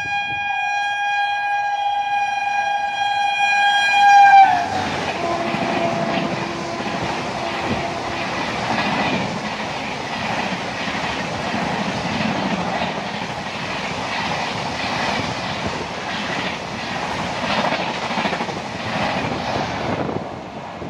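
Indian Railways express train's horn held in one long steady blast, growing louder until it cuts off about four seconds in. It is followed by the rush and rhythmic clickety-clack of the train's wheels over the rail joints as it runs past at speed, easing off near the end.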